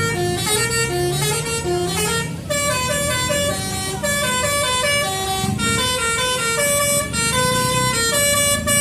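Telolet bus horn (a Basuri multi-tone musical horn) playing a quick tune of stepped notes without a break, over the low, steady running of a bus engine.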